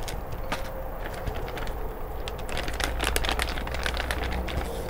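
Clear plastic zip bags crinkling and rustling while bagged thermometer probes and cables are handled, with many small irregular clicks and taps, busiest in the middle.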